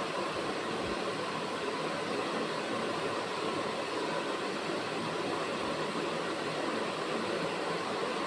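Steady rushing background noise, even and unchanging, with no distinct events.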